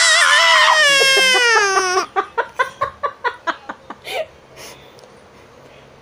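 A woman and a toddler squealing and laughing: a long high-pitched squeal for about two seconds, then a quick run of laughs, about five a second, that fades out around four seconds in.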